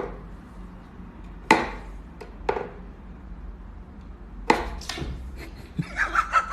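Sharp knocks, a few single ones a second or more apart, then a quick run of taps near the end.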